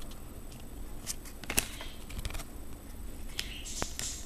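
Trading cards being handled and flipped: soft rustling with a few light clicks, and a brief sliding rustle near the end.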